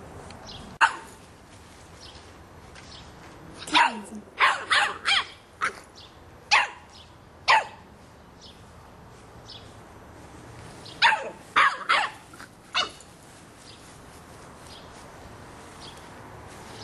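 Boston Terrier puppy barking loudly at a soccer ball in short sharp barks: one bark about a second in, a run of about seven barks a few seconds later, and another quick run of about five barks in the second half.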